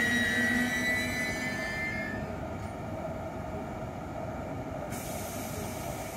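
ICE 1 high-speed train braking to a stop at the platform: a high squeal and lower tones fade out over the first two seconds, leaving the steady hum of the standing train. A faint hiss comes in about five seconds in.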